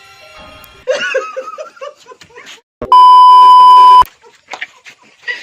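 People laughing in quick bursts, then a loud, steady, high beep about a second long that starts and stops abruptly, like an edited-in censor bleep, then more laughter.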